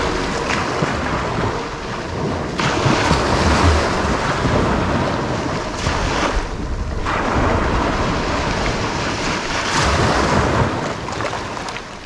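Small waves breaking and washing up over sand and rounded beach pebbles, in surges of surf about two and a half seconds in and again about seven seconds in. Wind buffets the microphone throughout.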